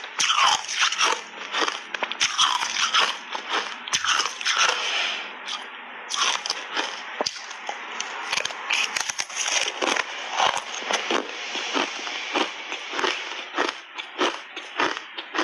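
Hard frozen cola ice bar thickly coated in matcha powder being bitten and crunched between the teeth in big bites: a dense, rapid run of sharp cracks and crackles without a break.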